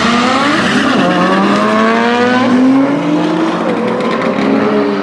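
Cars launching down a drag strip. The engine note climbs steadily and falls back at each upshift, about twice, over loud road noise.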